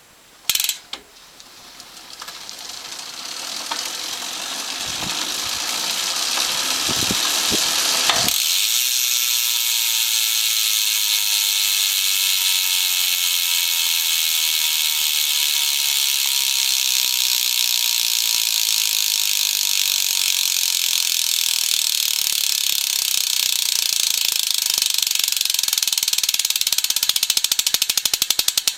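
Tune Kong rear hub's freewheel ratcheting as the rear wheel coasts: a fast, loud buzz of clicks that builds over the first several seconds, holds steady, then slows near the end into separate clicks as the wheel runs down.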